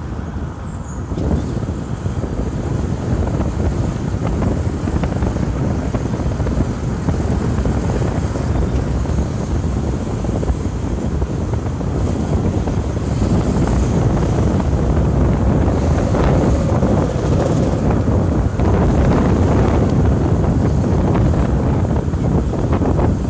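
Wind rumbling and buffeting on the microphone over the steady noise of a car driving along.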